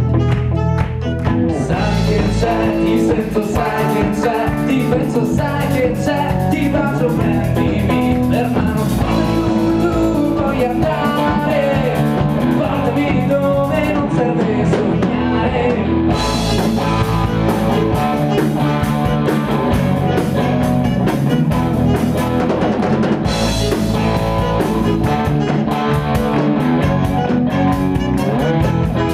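A rock band playing live: electric guitar, bass guitar and drum kit, with a lead singer's voice over them.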